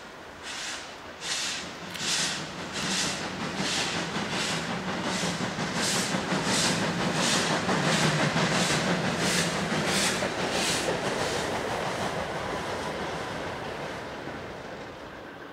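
Ex-German class 52 war locomotive 56 548, a two-cylinder 2-10-0 steam engine, working a freight train with a steady exhaust chuff, a little under two beats a second. The chuffing grows louder as the engine passes and dies away after about eleven seconds, leaving the low rumble of the boxcars rolling by.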